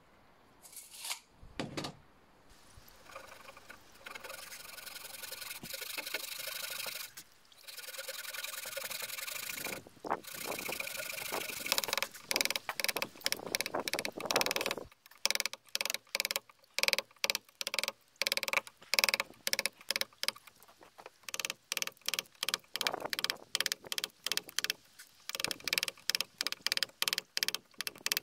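A saw cutting into a wooden log for several seconds, then, from about halfway through, a wooden mallet striking a chisel in quick repeated blows, chopping out a recess in the wood.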